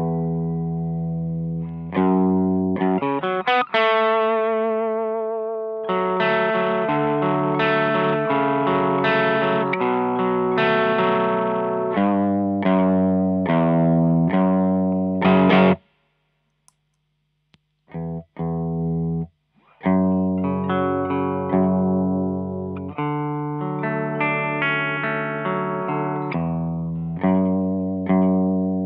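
Gibson Les Paul with humbuckers played through a Maxon OD808 overdrive into a Fender Blues Deluxe amp: overdriven chords and single-note phrases, some notes bent with vibrato. The playing stops about sixteen seconds in, two short stabs follow, then it resumes through a Visual Sound Route 808 overdrive, the last chord ringing out near the end.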